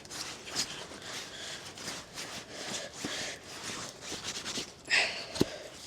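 Person breathing and sniffing hard while working a log, with short airy swells and some rustling. A single sharp knock comes near the end.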